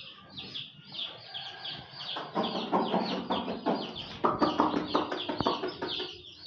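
A crowd of baby chicks peeping continuously in quick, high, downward-sliding cheeps. A louder, lower rasping sound joins between about two and six seconds in.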